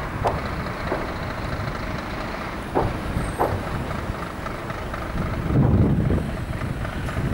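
Airbus A320-214 jet rumbling, heavily buffeted by wind on the microphone, with a few brief chirps in the first few seconds.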